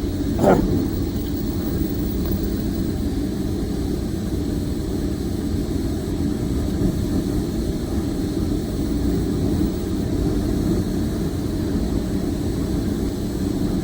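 Steady low engine rumble of machinery running at a construction site, with a brief louder knock about half a second in.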